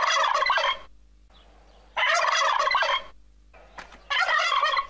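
Turkey gobbling three times, each gobble about a second long and about two seconds apart.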